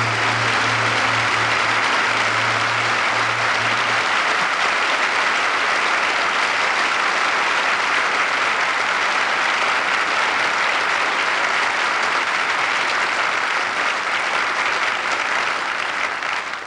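A large audience applauding steadily. For the first few seconds a sustained low note from the band's final chord sounds under it before dying away, and the applause fades off at the very end.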